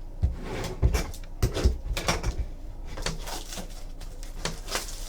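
Trading cards and their packaging handled on a table: irregular light knocks and clicks over a soft crackle of card stock and wrappers. The knocks are heaviest in the first two seconds.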